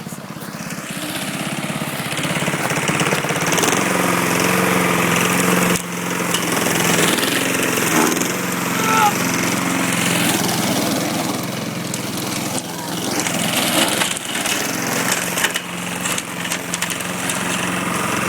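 Small petrol lawn mower engine running close up, getting louder over the first few seconds and then holding a steady, even drone.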